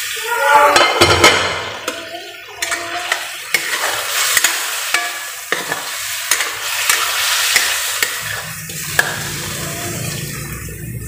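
Chicken pieces sizzling in a large metal wok while a spatula stirs and scrapes them, with sharp clicks and knocks each time the spatula hits the pan.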